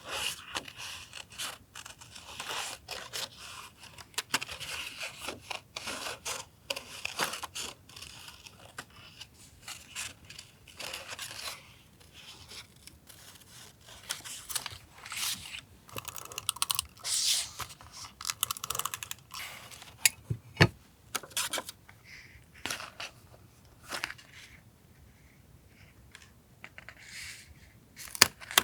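Paper being handled and torn for collage journaling: irregular rustling, tearing and scraping strokes, busier in the first part, with a sharp tap about twenty seconds in and another just before the end.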